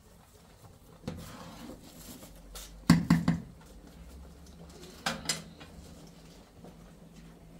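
Metal ladle clanking against a metal cooking pot: a quick run of sharp clinks about three seconds in, and two more about five seconds in.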